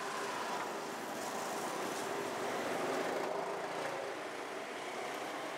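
Steady hum of street traffic, with engines running.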